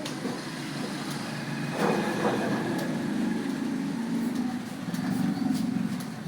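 Computer keyboard keys clicking irregularly as someone types, over a steady low background rumble.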